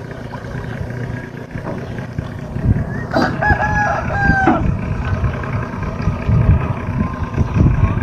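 A rooster crows once, a call of about a second and a half starting about three seconds in, over a steady low rumble.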